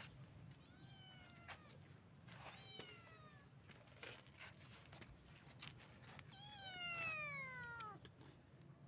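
Stray cat meowing three times, each meow falling in pitch; the last, about two-thirds of the way in, is the longest and loudest.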